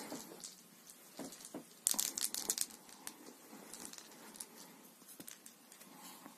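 Fabric rustling and crinkling as a hand rubs and scratches over a bedspread, in short strokes, with the loudest cluster of rustles about two seconds in.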